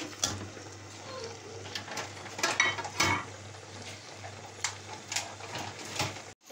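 A spatula knocking and scraping against a steel cooking pot as cream is added to grated carrots, with a few sharp clinks, loudest around the middle, over a low steady hum.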